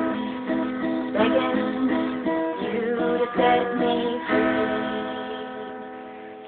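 Closing bars of a song played on guitar: strummed chords, then a final chord about four seconds in, left ringing and fading away.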